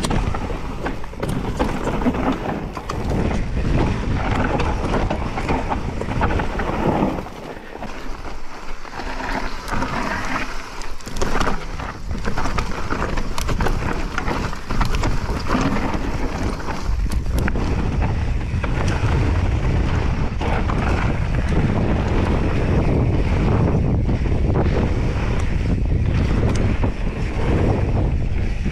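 Wind buffeting the microphone of a bike speeding down a rough dirt trail, with a steady rush of tyres on dirt and constant clattering as the bike hits bumps. The wind drops for a moment about seven seconds in.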